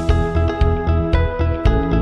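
Background music with a steady beat of about two strikes a second under sustained melodic notes.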